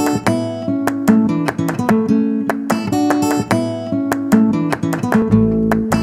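Background music: an acoustic guitar playing a steady run of picked and strummed chords.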